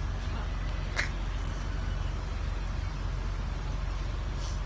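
A vehicle engine idling steadily with an even low rumble, and one sharp click about a second in.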